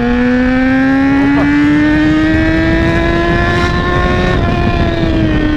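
Yamaha XJ6's 600 cc inline-four engine accelerating hard in one gear, its pitch climbing steadily, then easing off as the throttle rolls back near the end, with wind rushing past.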